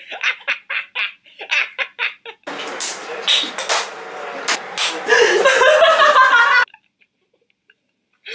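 People laughing: first a run of short, choppy bursts of laughter, then louder, higher laughter from more than one person, which cuts off suddenly about six and a half seconds in.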